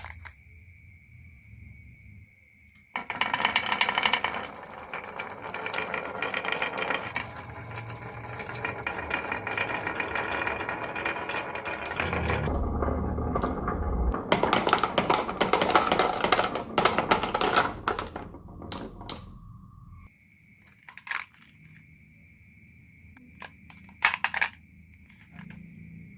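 Marbles rattling and clicking down a wooden marble run, a dense clatter of many small knocks lasting about seventeen seconds, followed by a few lone clicks near the end.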